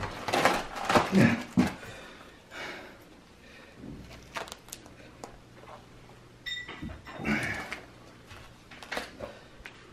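A man grunting and breathing hard as he strains against duct tape wound round his body, the tape crinkling and rustling as he twists. The loudest straining is in the first two seconds, with shorter rustling bursts later.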